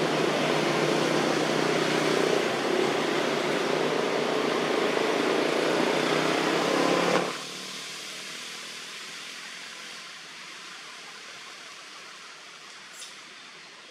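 Steady rushing noise that drops away suddenly about seven seconds in, leaving a fainter hiss with a single small click near the end.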